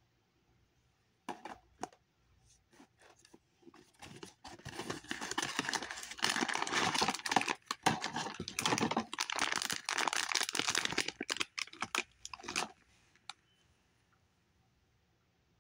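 Plastic toy packaging being torn open and crinkled by hand. A few sharp crackles come first, then a long dense stretch of crinkling that stops about two seconds before the end.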